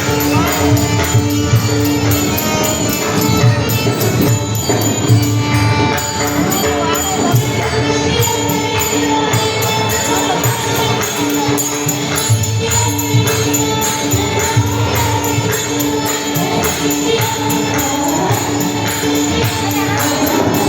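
Warkari devotional bhajan: a group singing, with small hand cymbals clashing on a fast, even beat and a drum underneath. A steady held note sounds below the voices throughout.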